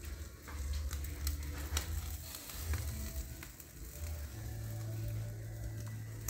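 Chicken pieces and a large roast sizzling over charcoal on a grill, with a steady hiss and scattered crackling pops. A low steady hum comes in about four seconds in.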